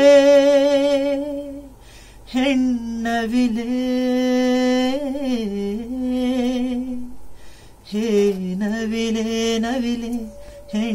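A man singing unaccompanied: a long held note fades out about two seconds in. After a short pause he sings a slow melody of long, wavering held notes, with a brief break about eight seconds in.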